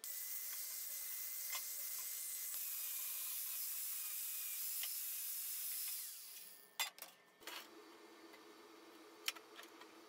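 Stainless-steel square tubing being worked on a steel welding table: a steady high hiss for about the first six seconds, then several sharp metal clanks as the pieces are handled and set down.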